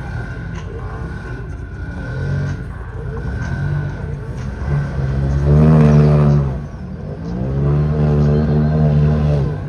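Vehicle engine revving hard, its pitch climbing and falling in long swells; the loudest rev comes a little past halfway, with another near the end.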